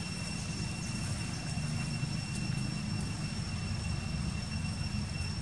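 Steady low rumble with a thin, constant high-pitched whine over it, unchanging throughout.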